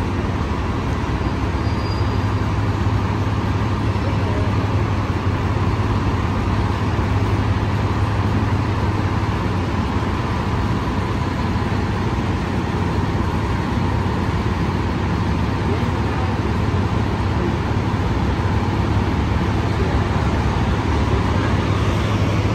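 Steady low rumble of road traffic and bus engines, unbroken and even throughout.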